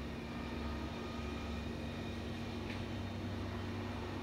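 Idling engine of a utility bucket truck: a steady low hum with a constant drone.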